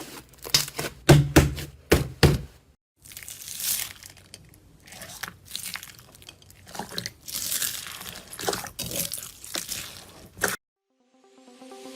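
Slime being pressed and squeezed by hand: a quick run of sharp clicks and pops, then softer, scratchier squishing. Near the end electronic music fades in.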